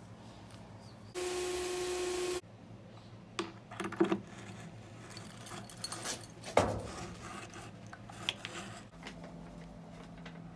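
Handling noise: scattered knocks, clicks and rubbing of objects being handled, with a brief steady hiss and low hum about a second in that stops abruptly.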